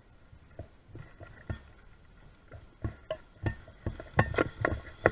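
Small waves lapping and slapping irregularly against the bank, the slaps getting louder and more frequent near the end, over the faint steady whine of the RC jet boat's electric motor running out on the water.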